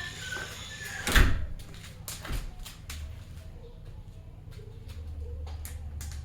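A single loud bang about a second in, then a lighter knock about a second later, with a few faint clicks and a low steady hum underneath.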